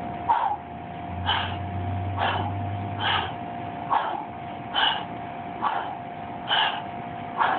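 Hard, fast breathing from an athlete working barbell thrusters, with a sharp exhale or gasp a little under once a second, over a steady high hum.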